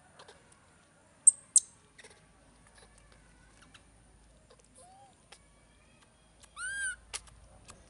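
Baby monkey squeaking: one short arched squeak near the end is the loudest sound, with a fainter one before it. Two sharp, very high chirps come about a second in, among scattered small clicks.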